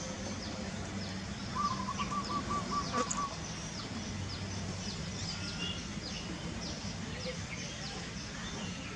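Birds chirping with many short, quick calls throughout. Between about one and a half and three seconds in, one bird gives a fast run of about eight repeated notes, the loudest sound here, over a faint low hum.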